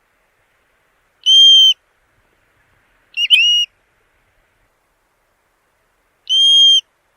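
A plover giving three clear, whistled calls a couple of seconds apart. The first and last are flat, even whistles about half a second long; the middle one is broken, with a quick upward slur.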